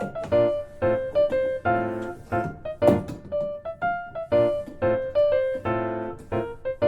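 Background music: a light piano or electric-piano tune of short, bouncing notes in a steady rhythm.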